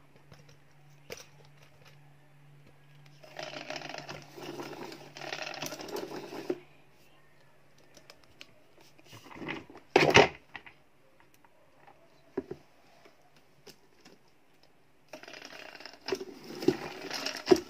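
Plastic 360° spin mop run without water: the mop head spinning in the bucket with a plastic rattling clatter from the gear mechanism in two stretches early on, a single loud knock about halfway through, and a steadier fast rattling with rapid clicks near the end as the head spins in the wringer basket.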